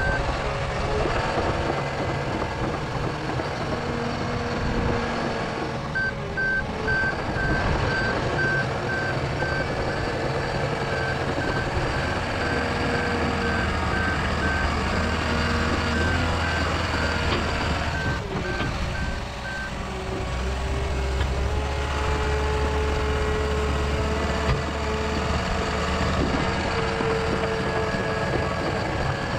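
John Deere 750L crawler dozer's engine running as it works, with its reversing alarm beeping in a steady pulse briefly at the start and again from about six seconds in to about twenty seconds in. After the beeping stops, the engine's low note grows stronger for several seconds.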